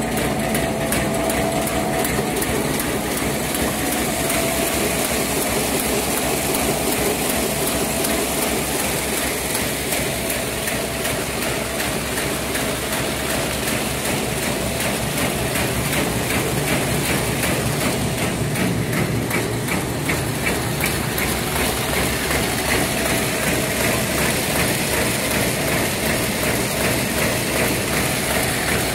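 LSD 700B automatic high-speed paper bag making machine running: a steady mechanical din with a fast, even clatter that keeps up throughout.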